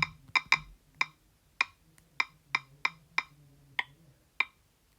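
Android phone's on-screen keyboard key-press clicks as keys are tapped: about a dozen short, sharp ticks at an uneven pace of roughly two a second.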